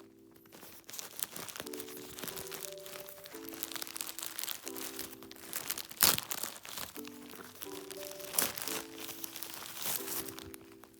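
Packaging crinkling and rustling as it is handled and opened, with two sharp louder snaps about six and eight and a half seconds in. Soft background music with sustained chords plays underneath.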